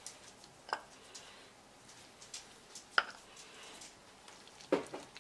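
Kitchen tongs clacking and tapping against a cast-iron skillet while pieces of braised short rib are moved around in it: three sharp clacks, the loudest about three seconds in, among lighter ticks.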